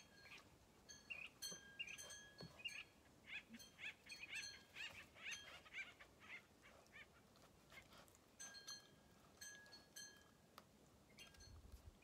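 Birds chirping faintly, a run of many short high calls that is busiest in the middle, with a few longer held notes between them.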